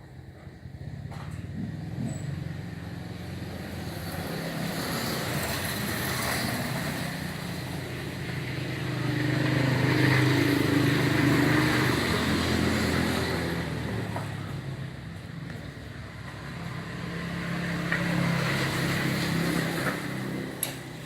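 Motor vehicle engine noise that swells and fades, like traffic passing on a nearby road. It is loudest about halfway through, with a second, smaller rise near the end.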